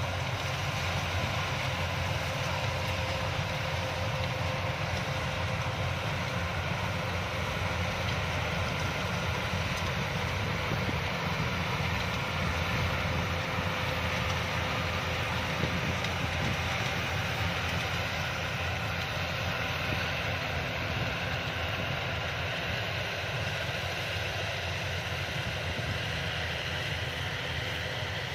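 Yanmar YH-850 rice combine harvester running steadily at work, a constant deep machine drone with no change in pace.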